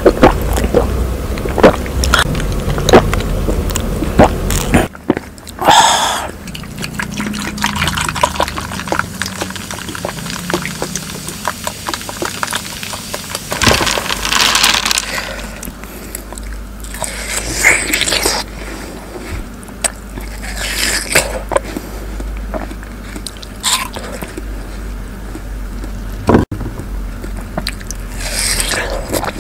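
Close-miked eating sounds of watermelon: juice sucked up through a straw with a quick run of wet clicks and slurps, a stretch of juice poured into the hollowed watermelon bowl about halfway through, and juicy bites into a watermelon slice near the end.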